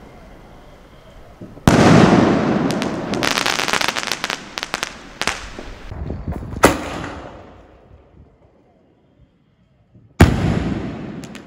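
Aerial firework shells from a 2-inch Sony Multiple Aerial Star Bomb skyshot, a crackling-type shell. A loud bang about two seconds in is followed by several seconds of dense crackling and a sharp crack near the seventh second, then a quiet gap and another loud bang with crackling near the end.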